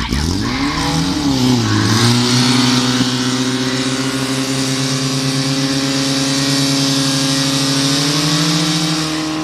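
Portable fire pump's petrol engine revved hard from the start, wavering once, then held at full throttle as it drives water through the attack hoses, climbing a little near the end.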